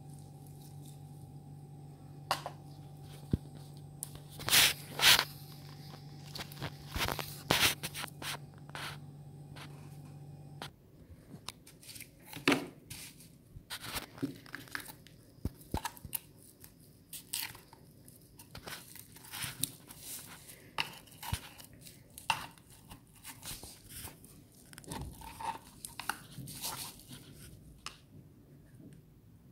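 A knife prying and scraping coconut meat out of the inside of the shell: irregular cracks, scrapes and crunches, with the loudest ones between about four and eight seconds in. A steady low hum underneath stops about ten seconds in.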